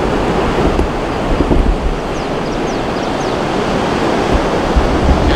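Ocean surf breaking and washing up on a sandy beach, a steady rushing noise, with wind rumbling on the microphone. A few faint, high, falling chirps about two to three seconds in.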